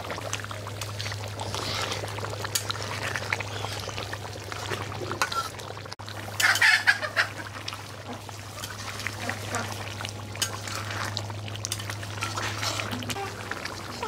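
Chicken curry simmering in a pot over the fire after water was added to boil it, a steady bubbling hiss with a low hum under it. A louder burst of sound comes about six and a half seconds in.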